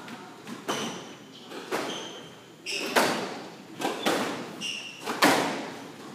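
Squash rally: the ball smacking off rackets and the court walls about once a second, each hit echoing in the enclosed court, with short high squeaks of court shoes on the hardwood floor between hits.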